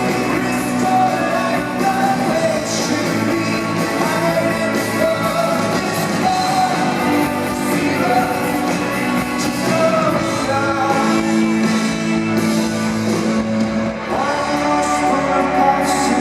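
Rock band playing live in a large arena, with singing over guitars and drums and the hall's reverberation.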